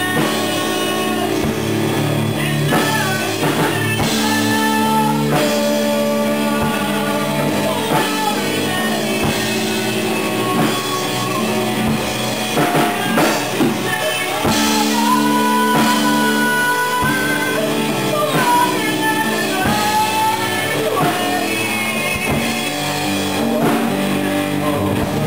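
Rock band playing live: electric and acoustic guitars over drums, with a lead line of held and bent notes above the chords.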